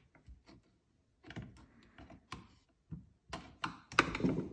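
Irregular light clicks and knocks of plastic chainsaw housing parts and a flathead screwdriver being worked by hand, as the saw's anti-vibration rubber mounts are pried loose. The loudest knocks come near the end.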